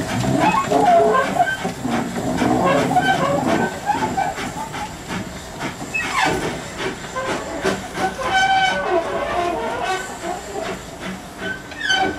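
Kerr-Stuart 'Brazil' class 0-4-2 saddle-tank steam locomotive running light, its steam hissing and wheels clattering over the rail joints, fading as it draws away.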